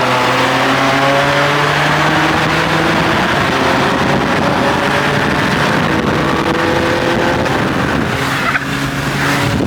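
A car engine running steadily under way, its drone drifting slowly in pitch over road and wind noise, and changing pitch near the end.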